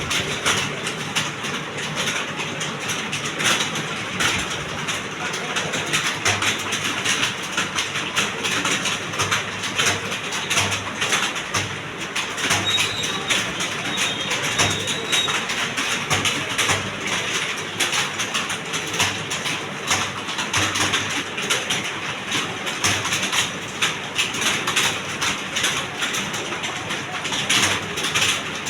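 Many computer keyboards clattering at once as a roomful of people type: a dense, continuous patter of overlapping key clicks.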